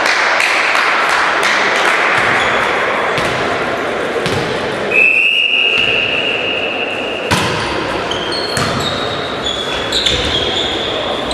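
Indoor volleyball: a referee's whistle blows one steady high note for about two seconds, then the ball is struck with a sharp smack and hit again a few times, with short shoe squeaks on the court floor, all echoing in the hall. Players' voices echo before the whistle.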